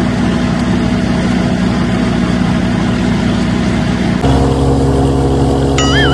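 Small DC motor of a DIY toy-tractor thresher whirring steadily, its hum shifting in pitch and character abruptly about four seconds in. A short warbling whistle sounds near the end.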